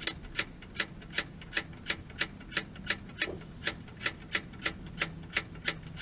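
Gas water heater's pilot igniter clicking over and over, about three sharp clicks a second, without producing a spark at the pilot.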